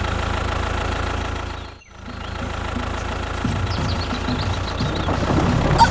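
Tractor engine running steadily at a low chug. It cuts out sharply just under two seconds in and then comes back.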